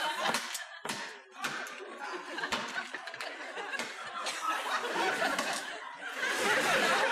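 Sitcom studio audience laughing, swelling louder about six seconds in.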